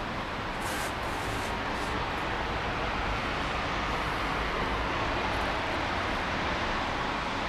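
Wind in a heavy snowstorm: a steady rushing noise with low rumbling, and a few faint brief hisses about a second in.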